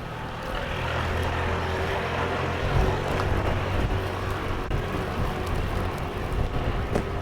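A motor vehicle's engine running with a steady low hum under a noisy rush, which swells about a second in.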